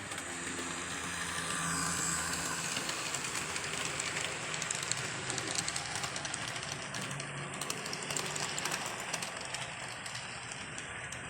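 HO scale model train led by a GP38 diesel locomotive rolling along the track: a steady motor hum under the rattle of small wheels, with light clicks as they pass over rail joints.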